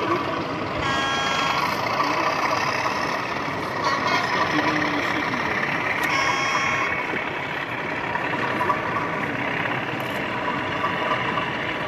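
Busy hall hubbub of visitors' voices and background noise, with two short steady tones of several pitches at once, about a second in and again around six seconds.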